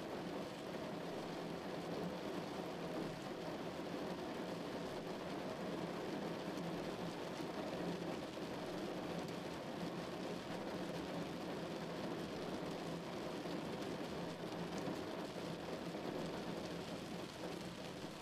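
Steady rain falling on a car's windshield and body, with the hiss of tyres on a wet road and engine noise, heard from inside the moving car.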